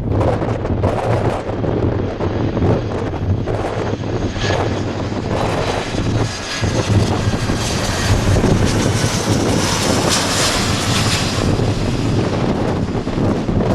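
Jet airliner engines whining as an aircraft passes, loudest about two-thirds of the way through, over heavy wind buffeting the microphone.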